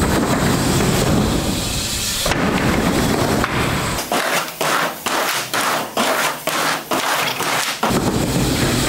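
BMX bike riding the skatepark ramps: the tyres rumble over the ramp surface, then from about four seconds in comes a quick run of knocks and clatters, and the rumble returns near the end.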